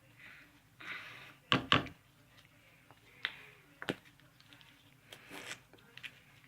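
Handling noises: a few sharp clicks and knocks, the loudest a quick pair about one and a half seconds in, with short bursts of rustling in between, as of objects being picked up and set down while getting toothpaste ready.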